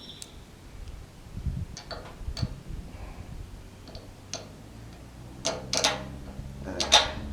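Scattered light metallic clicks and taps of a bolt, washers and wrench being worked into a sawmill's saw guide. A low steady hum comes in about halfway through.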